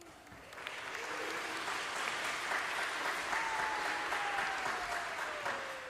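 Audience applauding, starting about half a second in and fading near the end. From about the middle a single thin tone slides slowly down in pitch.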